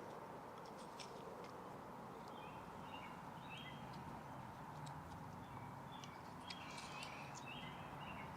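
A bird chirping over and over in short stepped notes against steady outdoor background noise, with scattered light clicks and taps.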